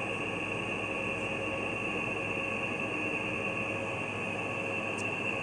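Steady hiss and hum with a constant high-pitched whine, and a faint tick about five seconds in.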